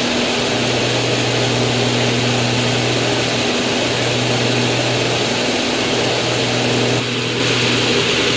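Pitts S-2B aerobatic biplane in flight, its Lycoming six-cylinder engine and propeller running steadily under the rush of airflow. The tone shifts slightly about seven seconds in.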